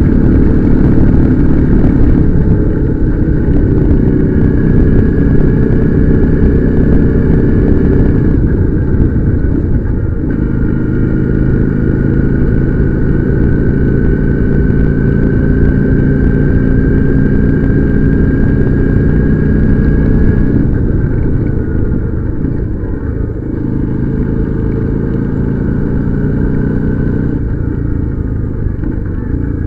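Motorcycle engine running while riding, recorded on board. The engine note shifts in pitch several times as speed and gear change, and a thin high whine runs over it.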